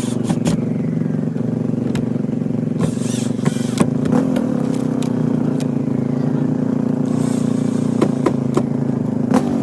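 A steady engine hum, like a motor idling, with scattered sharp clicks and knocks over it, several close together near the end.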